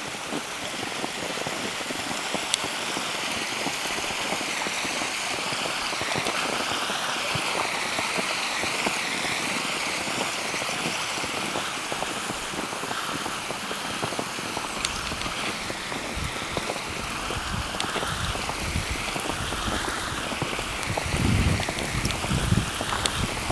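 Snowstorm wind rushing in a steady hiss. About two-thirds of the way in, gusts start buffeting the microphone in a low rumble that grows toward the end.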